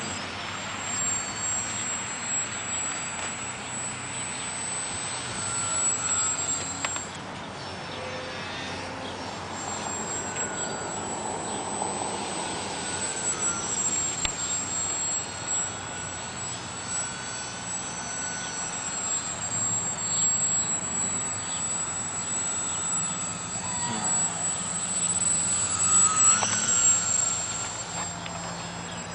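Motor and propeller of a Flatout Cap580 radio-controlled aerobatic model plane in flight: a whine whose pitch rises and falls as it manoeuvres, loudest near the end as it passes close.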